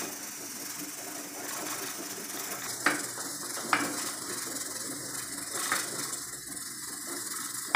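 Thick dough of flour cooked in boiling water being stirred and mashed in a steel pot with a wooden rolling pin, the pin knocking sharply against the pot three times near the middle.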